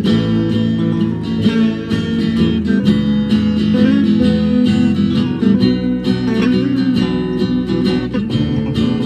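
A band playing a song led by strummed guitars, full and continuous with frequent rhythmic strokes.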